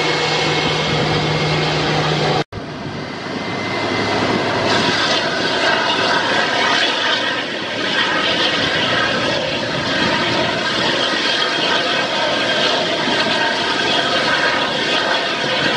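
Airbus A319 jet engines running at low power, a steady whine over a dense rushing hiss. The sound drops out for an instant about two and a half seconds in, then comes back with the same whine.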